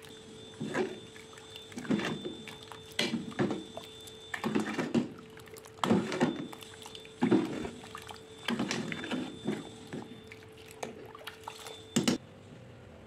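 Metal ladle scooping liquid in a metal pot and pouring it back, with repeated splashes and clinks roughly once a second. A faint steady hum runs underneath.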